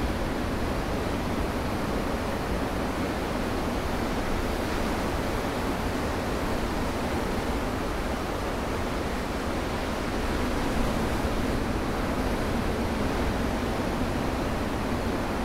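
Ocean surf breaking and washing in among shoreline rocks: a steady wash of noise, a little louder about eleven seconds in.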